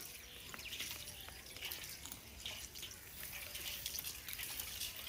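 Bundle of dry sesame stalks rustling and crackling as it is handled and carried, with many small irregular clicks.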